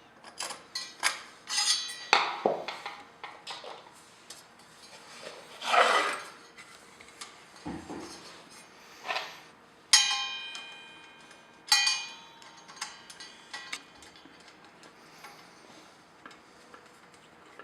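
Parts of an exhaust fan being handled: a series of clicks and knocks, a longer scrape about six seconds in, and two ringing metallic clinks about ten and twelve seconds in.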